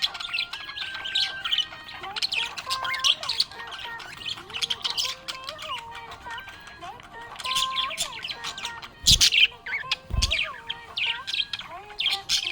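Budgerigars chirping and chattering in rapid, high, twittering calls, with two loud thumps about a second apart late on.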